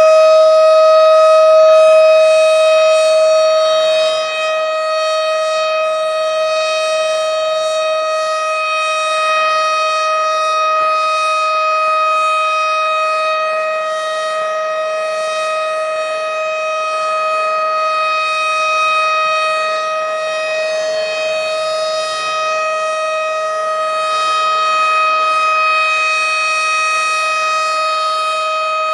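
Tornado warning siren sounding a loud, steady tone that holds one pitch throughout, its loudness swelling and easing slightly.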